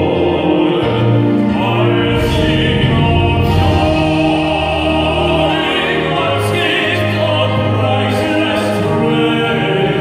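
Male gospel vocal quartet singing in harmony into microphones, amplified through the church sound system, with long held notes over a low bass line.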